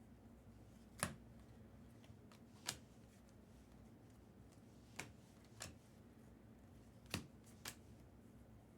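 Baseball trading cards being handled during a pack break: about six short sharp clicks or snaps, some in close pairs, over a faint steady hum.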